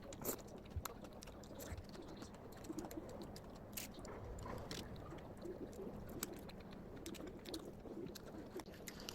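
Faint eating sounds: scattered small clicks and taps of utensils and dishes, with soft chewing between them.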